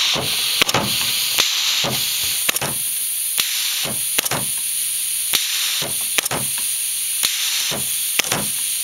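Homemade pneumatic cylinder, built from a screen door closer and driven by a solenoid air valve, cycled repeatedly: sharp clicks and knocks of the valve and rod about once or twice a second. Under them runs a steady hiss of compressed air leaking from the hose fitting.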